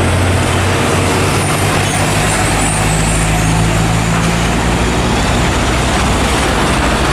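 Heavy truck engine running steadily, a low constant hum under a dense hiss.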